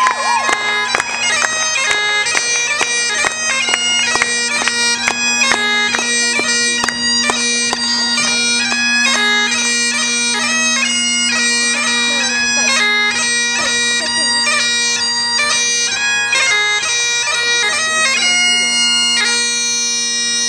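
Great Highland bagpipe playing a quick dance tune: steady drones under a chanter melody with crisp grace notes, ending on a long held note near the end.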